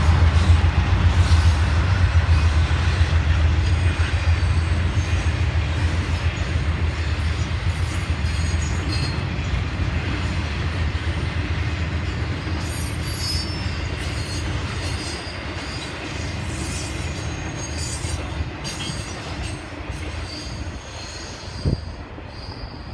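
Norfolk Southern intermodal freight train rolling past. The diesel locomotive's low engine rumble fades as it pulls away, leaving the rolling of the trailer-carrying flatcars with bouts of high wheel squeal from about halfway on. There is a single brief thump near the end, and the whole sound grows steadily fainter.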